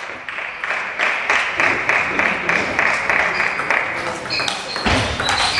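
Spectators clapping in applause. Near the end come short high pings of table tennis balls and a dull thump.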